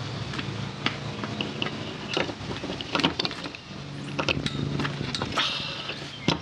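Hand-handling noises from a plastic Anderson Powerpole connector housing and heavy cable: scattered small clicks and knocks as grease-coated crimped contacts are worked into the housing, with a sharper click near the end. A steady low hum runs underneath.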